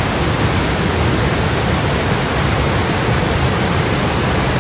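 Floodwater of a swollen river in a flash flood, a loud, steady rush of water.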